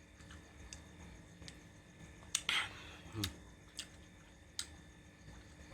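Close-up eating sounds: chewing with wet mouth clicks and smacks at irregular intervals, the loudest about two and a half seconds in.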